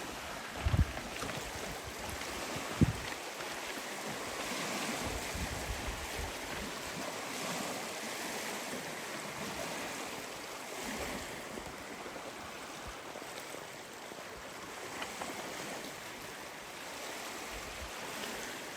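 Surf washing steadily on a rocky shore, with two brief low thumps in the first three seconds.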